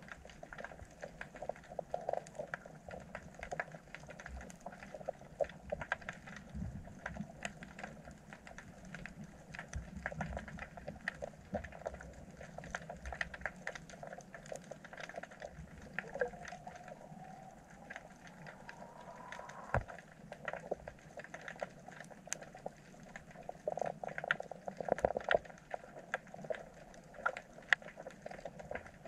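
Underwater sound on a rocky reef: a steady crackle of many small, irregular clicks over a low wash. A faint whine rises in pitch a little past the middle.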